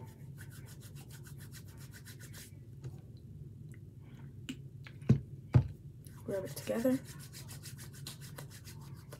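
Hands rubbing quickly together to spread slime activator over the palms, a fast run of rhythmic rubbing strokes. It stops for a few seconds while more activator is poured, with two sharp knocks about five seconds in, then the rubbing starts again near the end.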